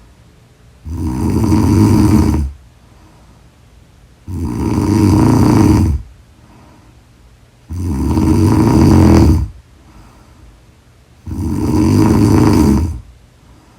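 A woman snoring loudly in deep sleep: four long, rasping snores about three and a half seconds apart, with quiet breaths in between.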